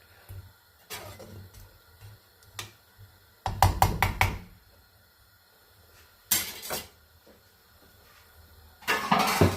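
Cooking spoon clinking and scraping against a pan while stirring a simmering stew, in three short bunches of knocks. The loudest bunch, several quick strokes, comes about three and a half seconds in.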